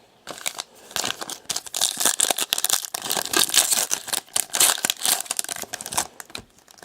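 Plastic-foil wrappers of 2017 Select Racing card packs crinkling and tearing as packs are handled and ripped open, a dense run of crackles that starts about half a second in and dies away near the end.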